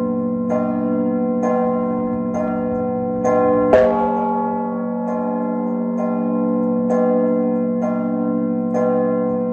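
Bronze church bells chimed in a Maltese festa peal, their clappers pulled against the rims by hand ropes. The strikes come in a steady pattern a little under a second apart over a continuous low hum, with one heavier, sharper stroke about four seconds in.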